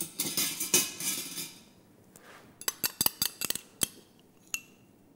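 A metal spoon scraping mustard out of a small glass cup, then a quick run of sharp clinks as the spoon taps against the glass.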